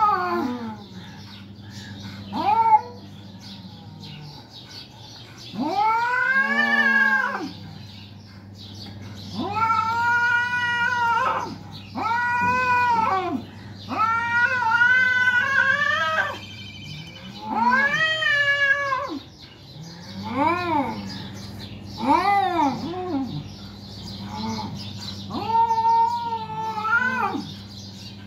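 Domestic cats caterwauling in a face-off: about a dozen long, wavering yowls, each rising and falling in pitch, one every second or two. This is the threatening yowl of a territorial standoff between two cats.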